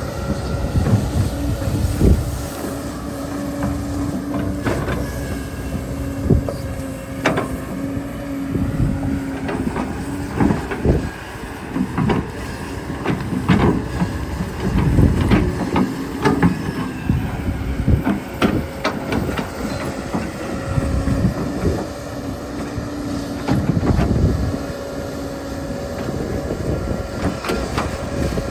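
Small RC excavator working: a steady electric motor whine that drops out and comes back, with irregular clattering knocks as it moves and digs.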